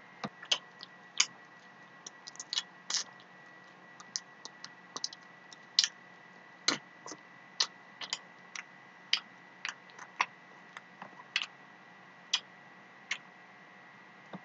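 Irregular sharp clicks and smacks from a mouth chewing and working at food, about two a second, over a faint steady electrical hum.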